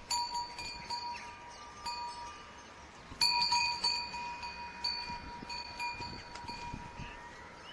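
Bells on a flock of sheep clanking and jingling at the same fixed pitch. Strikes come irregularly, with a loud cluster at the start and a louder one about three seconds in.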